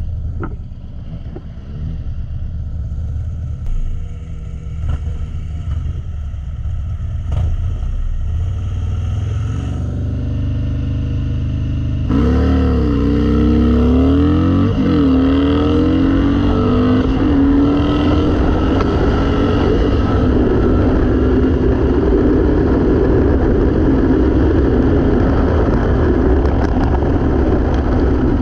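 Harley-Davidson Dyna V-twin idling with a few short throttle blips. About twelve seconds in it launches hard: the revs climb and drop back with two quick upshifts, then the engine runs steadily under load at highway speed.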